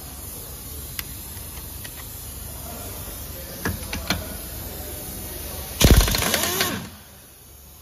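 Air impact wrench with a lug nut socket hammering on a wheel lug nut in one burst of about a second, winding down in pitch as it stops. A few light metal clicks come before it as the socket is fitted and seated on the nut.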